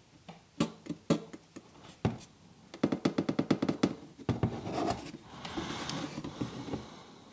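Engine oil poured from a plastic bottle through a funnel. A few knocks from the bottle are followed by rapid glugging, about ten glugs a second, which then turns into a steadier pouring rush.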